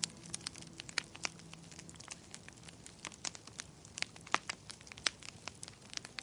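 Wood fire crackling in a fireplace: irregular sharp pops and snaps, several a second.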